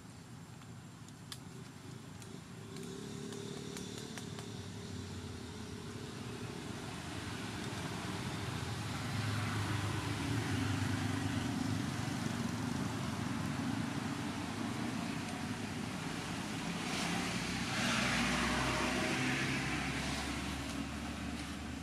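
A motor vehicle's engine running nearby, with no speech, its steady drone growing louder over the first several seconds and rising again near the end, as traffic passes.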